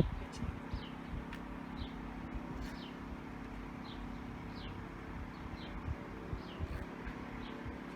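A small bird chirping again and again, short high falling notes about once a second, over a steady low hum.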